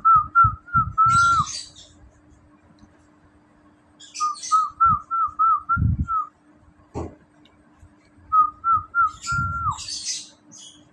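A whistled tune of quick, bending notes in three short phrases about four seconds apart, the first and last ending on a held note that slides down. Low thumps sit under the phrases, and there is a single sharp knock about seven seconds in.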